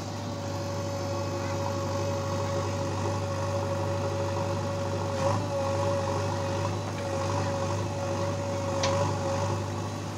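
JCB backhoe loader's diesel engine running steadily as its backhoe arm digs earth, a low drone with a steady whine above it.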